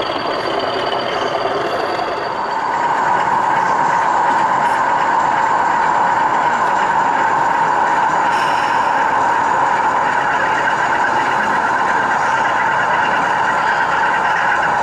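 Sound-fitted OO gauge model diesel locomotive running, its engine sound playing steadily through the model's small speaker and growing louder about two and a half seconds in.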